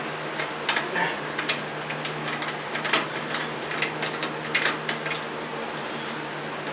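Workshop handling noises: a scattered run of light clicks and knocks, as of mower parts and tools being handled, over a steady low hum. The clicks die away about five and a half seconds in.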